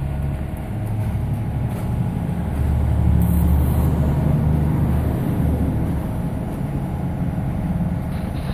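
Concrete mixer truck's diesel engine running with a low, steady rumble that swells louder about two and a half seconds in and eases back a few seconds later.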